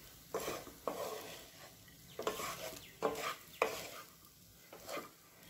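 Wooden spatula stirring and tossing vegetable fried rice in a hot oiled pan: about six irregular scraping strokes, each followed by a short sizzle.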